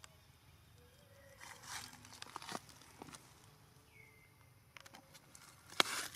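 Soft rustling and a few sharp clicks as a long-tailed macaque grooms a baby macaque lying against a terry towel, with the loudest rustle near the end. Two brief faint squeaks, one about a second in and a higher one about four seconds in.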